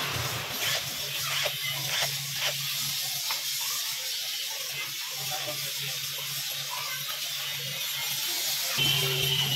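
Cordless drill-driver spinning out bolts on a motorcycle engine's crankcase, whirring briefly at the start and again near the end. In between come light clinks of small metal engine parts being handled, over a steady hiss.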